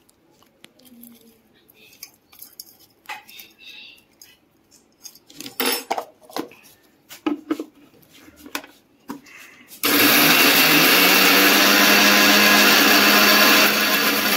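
Clinks and knocks of Oreo biscuits and a steel mixer-grinder jar being handled and set on its base. About ten seconds in, the 1 HP mixer grinder's motor starts suddenly, spins up and runs loud and steady, grinding the biscuits to powder.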